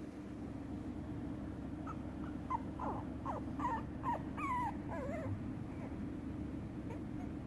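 Shiba Inu puppy whimpering: a run of short, high squeaks that bend up and down in pitch, over a steady low hum.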